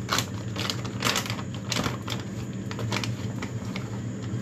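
Irregular light clicks and crinkles of a plastic packet of powdered ube flavoring being handled and scooped from, about two to three a second, over a steady low hum.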